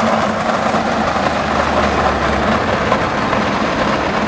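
Small go-kart moving along a tarmac slope: a steady rolling noise.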